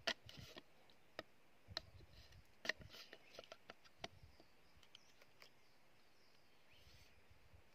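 Small sharp clicks, taps and rustles of thin bamboo sticks being handled and fitted into a green bamboo tube trap, busiest in the first half, then a few faint ones.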